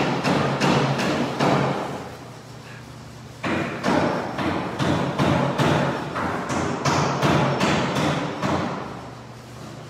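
Repeated heavy knocks, about two and a half a second, echoing in a large room. They pause for about a second and a half near the two-second mark, then go on and die away near the end.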